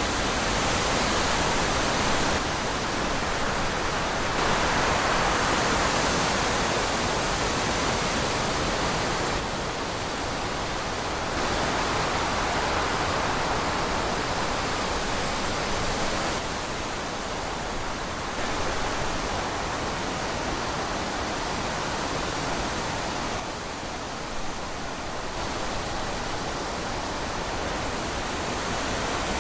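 Wind blowing steadily, swelling and easing in slow gusts every few seconds.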